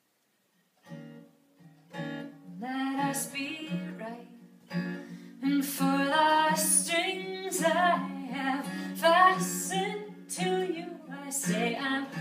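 Music starts about a second in, with instrumental accompaniment joined a moment later by women's voices singing.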